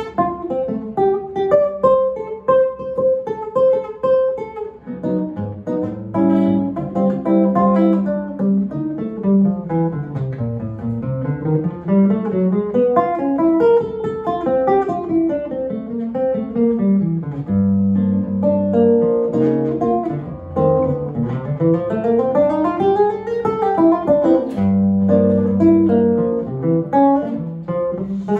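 Nylon-string acoustic-electric guitar playing an unaccompanied jazz solo. Held chords with low bass notes alternate with fast single-note runs that climb and fall.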